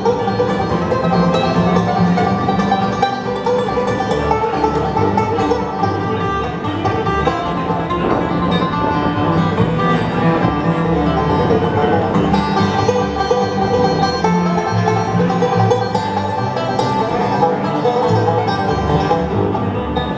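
Bluegrass band playing an instrumental passage live: quick plucked strings over a steady, walking bass line.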